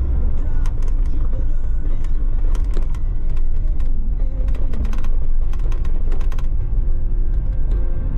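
Vehicle driving along a rough, bumpy concrete farm lane: a steady low engine and road rumble, with a run of sharp knocks and rattles over the bumps through the middle of the stretch.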